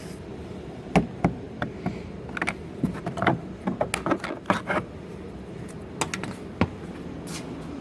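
Irregular light clicks and ticks of a screwdriver and the plastic interior door-panel trim being worked by hand, about a dozen scattered over several seconds.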